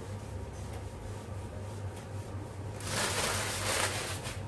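Newspaper rustling as it is handled, then crackling loudly as it is crumpled up from about three seconds in, over a low steady hum.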